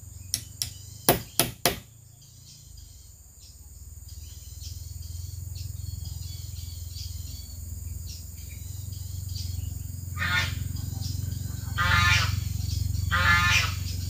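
A few sharp knocks like hammer blows in the first two seconds. Then, from about ten seconds in, three loud wavering bleats from goats.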